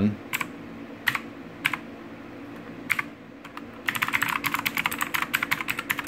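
Philips G400 SPK8401B mechanical keyboard with clicky blue switches. Four single key clicks come spaced out over the first three seconds, then a fast run of typing lasts about two seconds.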